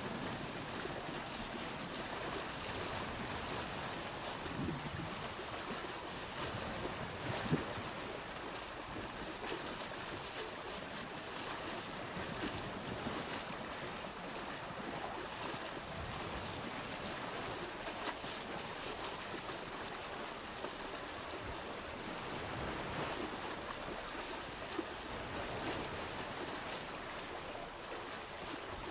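Steady rush of water flowing along a stone-lined village irrigation channel, with water pouring from spouts into it.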